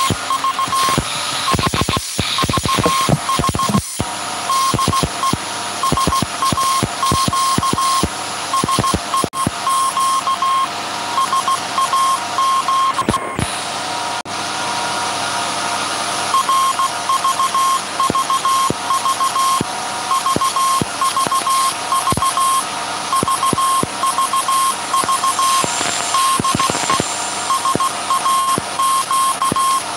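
Morse code message sent by the 1924 Alexanderson alternator transmitter SAQ: a beeping tone keyed on and off in short and long elements, over the steady noise of the running alternator, with repeated sharp clicks.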